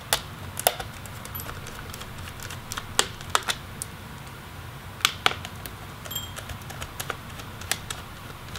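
Irregular sharp clicks and taps of a small Phillips screwdriver and tiny screws against a laptop's case as the battery screws are taken out, a few at a time with pauses between.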